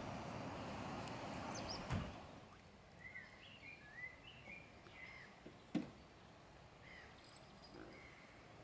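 Murmur of a seated outdoor crowd, then a knock about two seconds in. After that a quieter spell of birds chirping, broken by a sharp clunk near the middle as a classic BMW saloon's bonnet is shut.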